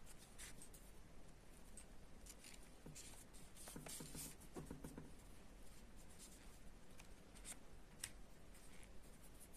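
Faint scratchy rustling of yarn and a yarn needle being drawn through crocheted fabric while sewing the pieces together, in scattered short strokes, with soft handling of the stuffed toy.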